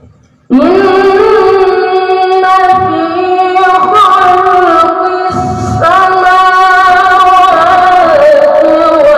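A boy reciting the Quran in the melodic tilawah style into a handheld microphone, amplified over loudspeakers. He comes in about half a second in with long held notes that bend and waver in pitch, breaking off briefly past the middle before going on.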